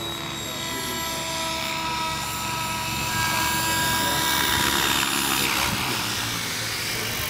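Mikado Logo 600 electric radio-controlled helicopter in flight: a steady multi-tone whine with a broad rush under it. It grows louder about four to five seconds in as the helicopter comes low, and the whine fades near the end.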